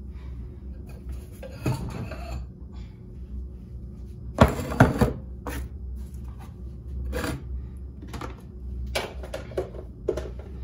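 Kitchen cupboard and dishes being handled: a ceramic bowl is taken out and set down on a wooden counter, giving scattered knocks and clatters, the loudest pair about four and a half seconds in.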